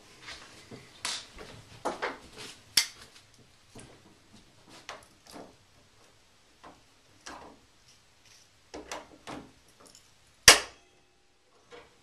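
Scattered light clicks and knocks of door hinge hardware and hand tools being handled, with one sharp, louder knock about ten and a half seconds in that rings briefly.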